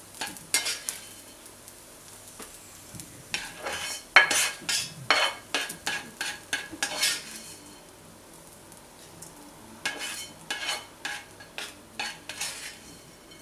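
A utensil scraping and scooping fried rice out of a pan into a bowl: irregular bursts of quick scrapes and clinks, busiest in the middle and again near the end.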